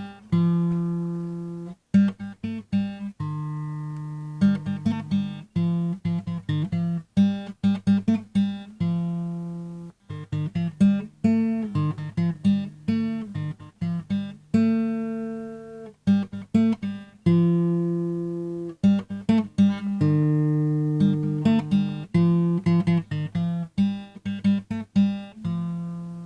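Outro music: acoustic guitar playing plucked notes and strums that ring and decay, fading out at the end.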